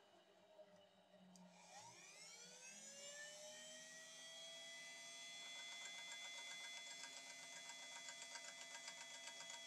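Faint Dremel rotary tool with a grinding stone spinning up with a rising whine about two seconds in, then running at a steady high pitch. From about halfway a fast fluttering joins it, as the stone grinds the workpiece.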